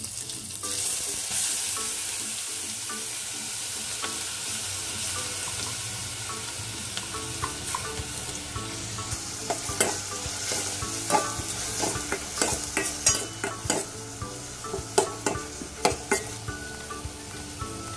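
Chopped onions dropped into hot oil with cumin and mustard seeds in a steel pot. A loud sizzle starts about half a second in and slowly dies down. In the second half come repeated clinks and taps against the pot as the bowl is knocked empty.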